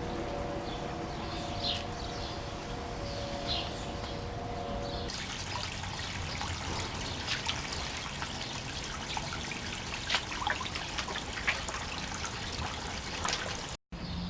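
Running water trickling and splashing, with many small crackling ticks. For about the first five seconds a steady low hum and a few short high chirps sit under it; the hum stops about five seconds in, when the water becomes louder and fuller.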